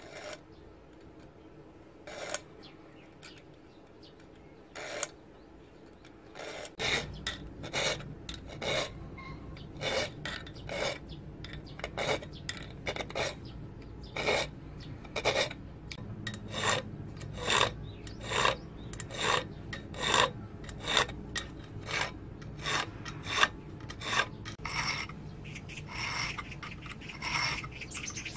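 Hand file scraping across a steel knife blank made from plow parts: two single strokes early, then from about seven seconds in a steady run of back-and-forth filing strokes, roughly three every two seconds.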